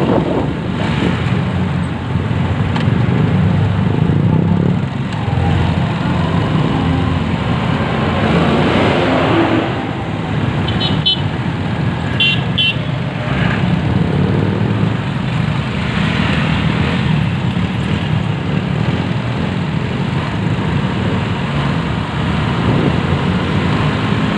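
Motorcycle riding in traffic: steady engine and road noise, with a few short vehicle-horn beeps about halfway through.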